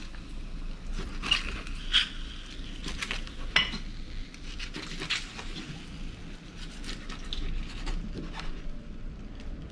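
A chef's knife cuts through grilled eel and strikes a wooden cutting board, with tongs clinking against the blade. It makes irregular sharp knocks and clinks, about one or two a second.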